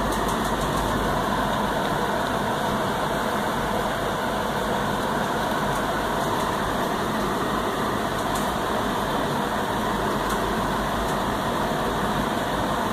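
Steady rushing machine noise with a low hum underneath, unchanging throughout, with a few faint light clicks.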